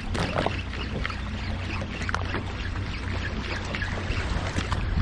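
A boat motor runs steadily with a low hum, while water sloshes and splashes against the hull.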